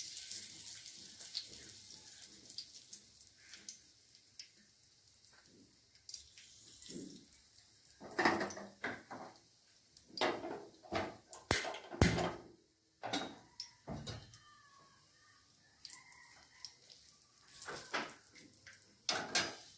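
Bay leaves and cinnamon sticks sizzling in hot oil in an iron karahi, the sizzle fading over the first few seconds. Scattered sharp clicks and knocks follow, the loudest about twelve seconds in.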